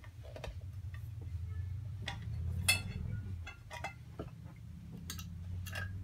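Scattered sharp clicks and light metal clinks as the washer clutch assembly and gear case are handled and worked on at the bench, over a low steady hum.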